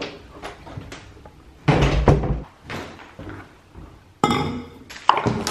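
Footsteps in sneakers on a hardwood floor and a set of keys jingling, with a heavy thump about two seconds in.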